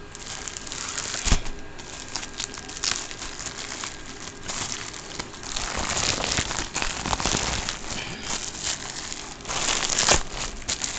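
Plastic courier mailer bag crinkling and rustling as it is handled, with a sharp knock about a second in and another near the end.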